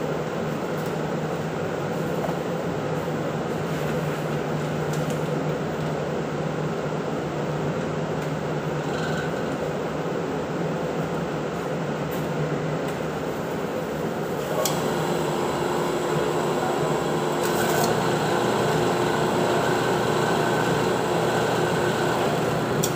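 Ventilation blower running steadily with a constant hum and rush of air. About 15 s in, a short click, and the drone grows a little louder and changes tone.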